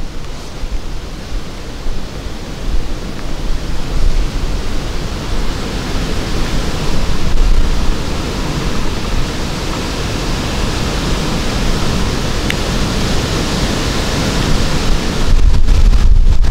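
Steady rushing wind noise with gusts buffeting the microphone, a heavy low rumble that grows louder near the end.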